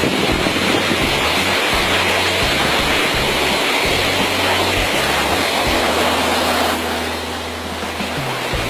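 Waterfall rushing, a steady wash of falling water, with background music carrying low held notes underneath; the rushing eases a little about seven seconds in.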